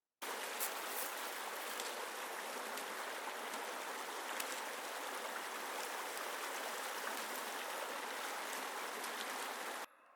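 Steady rush of flowing water, an even hiss that starts abruptly and cuts off abruptly near the end.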